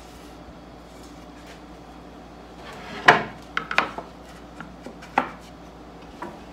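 Wooden furniture parts being handled and set down on a workbench. There is one loud knock about three seconds in, a quick clatter of lighter knocks after it, another sharp knock a couple of seconds later and a light tap near the end.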